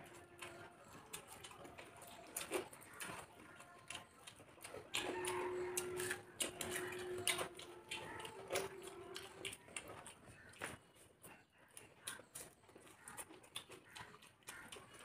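Quiet eating sounds: fingers mixing rice and food on plates, with chewing and many small clicks and smacks. A faint held tone sounds in three stretches of about a second each in the middle.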